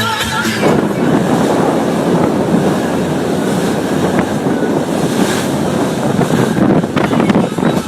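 Wind buffeting the microphone over rushing, splashing water, as aboard a boat under way, starting once the music cuts off about half a second in.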